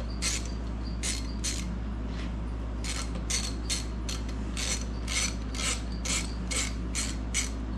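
Hand ratchet wrench clicking in repeated short strokes, about two a second with a brief pause about two seconds in, as it works a bolt loose on an aluminium MerCruiser sterndrive gimbal housing. A steady low hum sits underneath.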